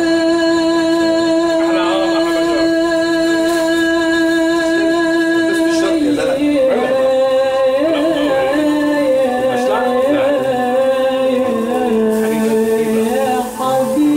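Music with singing: a long held note for about six seconds, then a wavering, ornamented melody.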